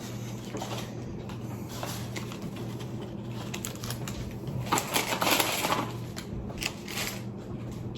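Light clicks and rustling of things being handled, with a louder rustle about five seconds in, over a steady low hum.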